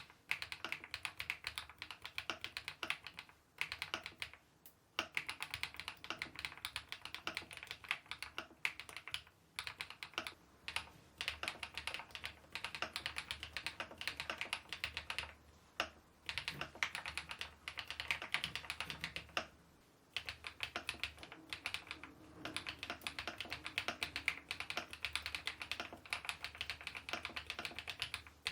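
Typing on a YUNZII B68 mechanical keyboard with a plastic housing and MOG profile keycaps: fast runs of keystrokes broken by several short pauses.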